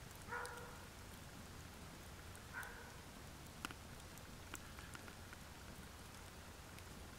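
Wood campfire burning, with faint scattered crackles and pops. Two brief faint calls come in the first three seconds, about two seconds apart.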